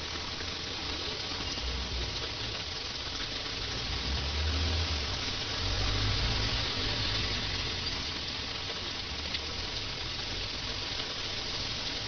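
Heavy monsoon rain falling steadily on a wet street, a constant hiss. A low rumble swells in the middle and fades again.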